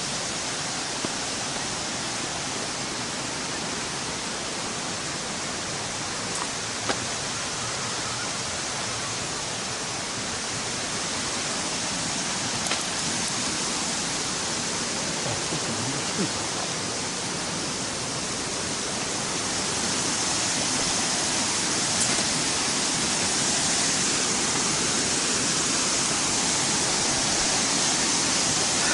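Steady rush of running water, growing a little louder about two-thirds of the way through, with a few small clicks.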